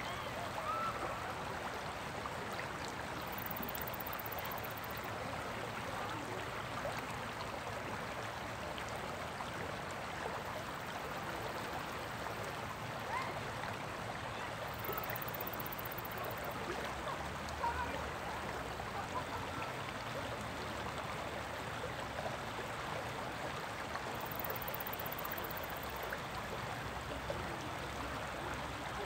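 Shallow river riffle: water rushing steadily over rocks and stones.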